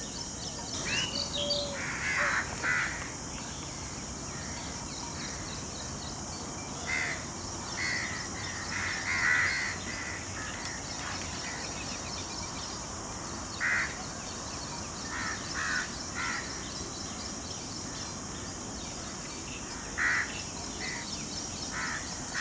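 Crows cawing: short, harsh calls in scattered clusters, a few at a time, over a steady high hiss.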